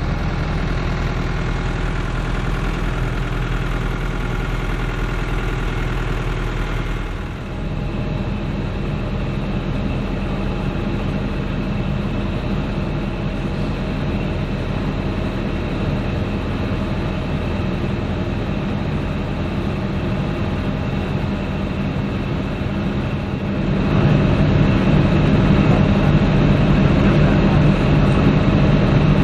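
Heavy-haulage rig's diesel engine running steadily at low revs. The sound changes abruptly about seven seconds in and gets louder at about 24 seconds.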